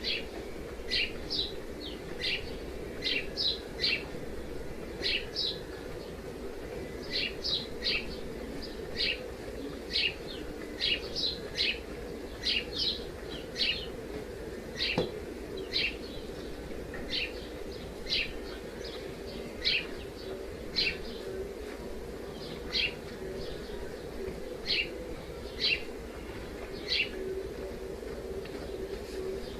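A small bird chirping over and over, short high notes that each drop in pitch, one or two a second, some in quick pairs, over a steady low hum.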